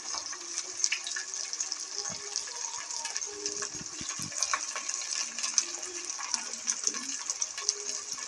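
Chopped onions, green chillies and potato pieces sizzling in hot oil in an aluminium pot, a steady hiss full of small crackles.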